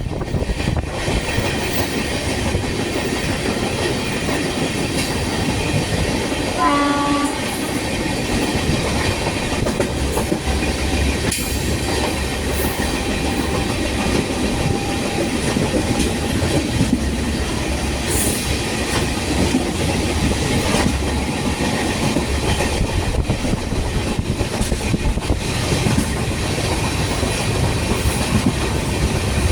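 Express train running at high speed, a steady loud rush of wheels on rails with clickety-clack. A short horn blast sounds about seven seconds in.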